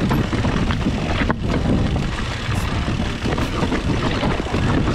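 Mountain bike rattling and clattering over a rocky trail on a descent, with wind rumbling across the handlebar-mounted action camera and a sharp knock about a second in.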